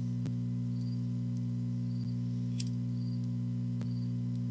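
Steady low electrical hum with several pitches stacked together. Over it come a few faint clicks and a faint short high chirp about every second.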